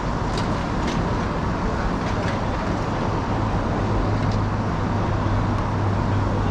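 Steady outdoor background noise, a rumble and hiss typical of road traffic, with a low hum that grows stronger about four seconds in and a few faint clicks.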